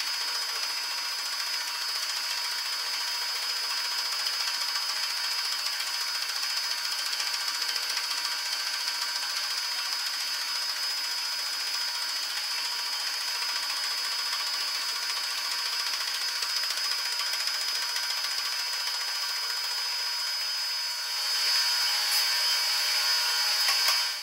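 Slitting saw on a milling machine cutting a slot through a steel bar: a steady, high-pitched whine of the cut. It grows louder about three seconds before the end and cuts off suddenly.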